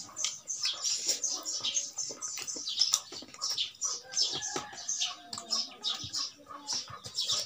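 Close-miked eating by hand: fingers squishing and mixing rice in a steel bowl, then wet chewing and lip smacks, a rapid run of short clicky mouth sounds.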